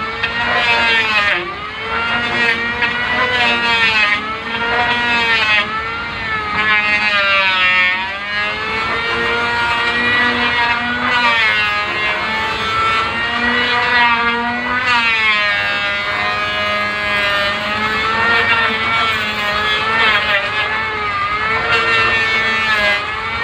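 Handheld corded electric power tool running against timber, its motor whine dipping in pitch and recovering over and over as it bites into the wood and eases off.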